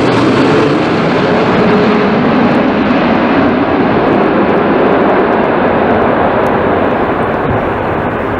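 Boeing 747-8 freighter's four GEnx turbofans at approach power as the jet comes in on short final and flares over the runway: a loud, steady jet rumble and roar. The hiss in it dulls from about four seconds in as the aircraft moves past and away.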